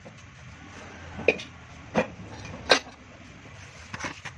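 Three sharp knocks about two-thirds of a second apart, then a few lighter ones near the end, over a low steady hum. These are the emptied steel A/C compressor shell being set down and shifted on a platform scale.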